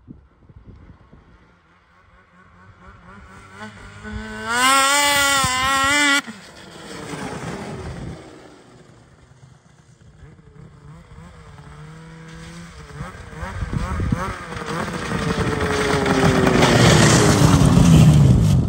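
Snowmobile with a Straightline Performance ultralight aftermarket muffler making a full-throttle pull. Its engine note wavers at high revs for a couple of seconds and cuts off suddenly when the throttle is released. It then runs lower and grows louder again as the sled comes closer, the revs falling as it slows near the end; very, very loud.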